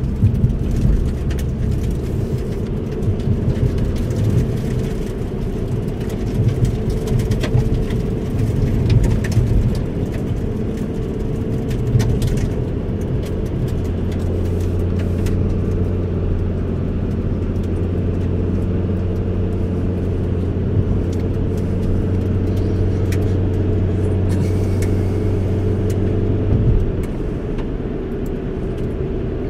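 Car interior noise while driving: engine and tyre rumble on the road. A steady low hum settles in about halfway through and drops away near the end.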